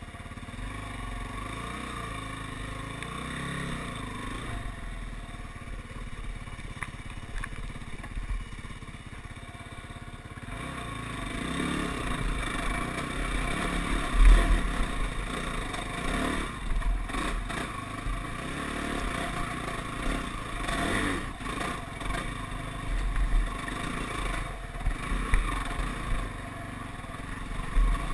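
ATV engine running while riding over rough trail, its revs stepping up and down and getting louder about a third of the way in. Knocks come from the machine jolting over bumps, the loudest about halfway through.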